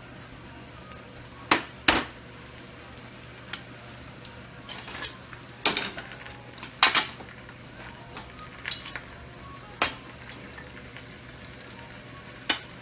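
Kitchen dishes and utensils clinking and clattering as bowls, plates and chopsticks are handled and set down on the counter: about eight sharp, irregularly spaced knocks over a faint steady hiss.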